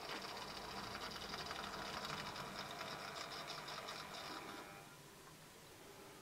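Modified Minitrix Warship model diesel locomotive, fitted with a replacement 5-pole motor, running along the track with a busy whir and light clicking, then cutting out about three-quarters of the way through as the train stops.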